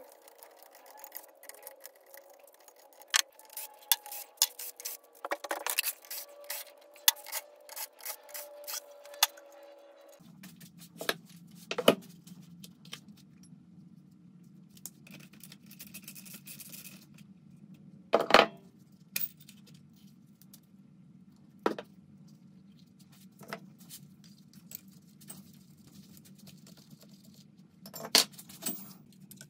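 Metal hand tools and engine parts clinking, knocking and scraping in irregular handling sounds, with a louder clank about eighteen seconds in. A steady low hum sits underneath from about ten seconds in.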